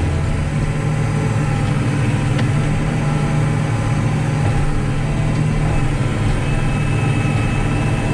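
Caterpillar 973C track loader's six-cylinder diesel engine running steadily, heard from the operator's cab.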